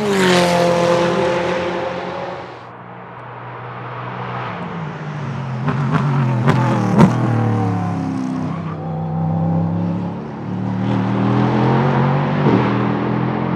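Ligier JS P320 LMP3 car's Nissan VK56 5.6-litre V8 passing at speed. The first pass drops in pitch and fades. The car then comes in again, falls in pitch with a couple of sharp cracks from the exhaust about halfway, and pulls away with the revs climbing.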